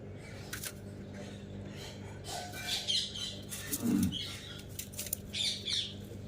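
Pet parrot making short high chirps and squawks, with scattered sharp clicks and a louder low call about four seconds in, over a steady low hum.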